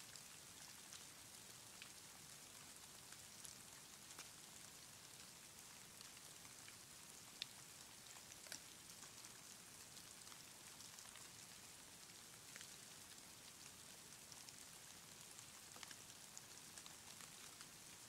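Faint patter of falling snow: a soft high hiss with scattered, irregular light ticks of flakes landing, one sharper tick about halfway through.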